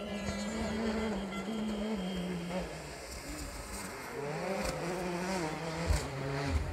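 World Rally Car's 1.6-litre turbocharged four-cylinder engine revving and changing gear as the car comes through a stage, its pitch stepping up and down, with a few sharp cracks in the second half.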